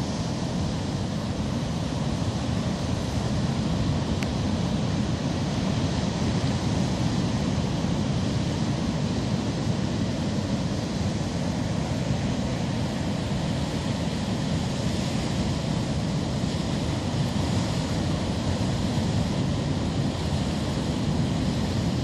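Heavy storm surf breaking on a rocky shore: a steady, continuous wash of wave noise, strongest in the low range, with no separate crashes standing out.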